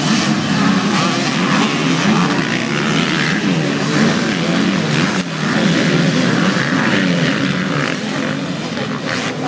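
A pack of motocross bikes racing past, several engines revving up and down at once and overlapping continuously.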